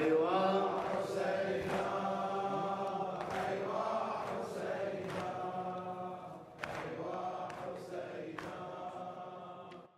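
Male voices chanting a Shia Muharram mourning elegy together, with long drawn-out notes, fading out just before the end.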